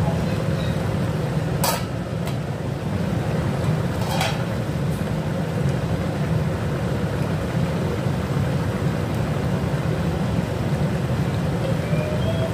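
A pan of curry boiling on the stove, a steady low rumble and bubbling, with two short clicks about two and four seconds in.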